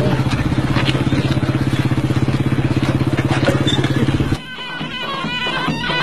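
A small engine running steadily with a fast, even pulse. It cuts off suddenly about four and a half seconds in, when music with a folk, Middle Eastern sound starts.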